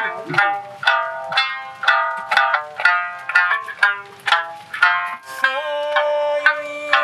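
Sanshin, the Okinawan three-stringed lute, plucked at about two notes a second, accompanying an Okinawan island folk song (shima-uta); a singing voice comes in with one long held note about five and a half seconds in.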